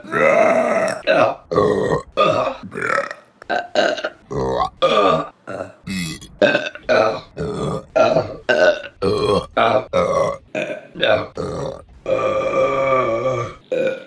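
Women burping, about twenty short burps cut one straight after another, with a longer drawn-out burp near the end.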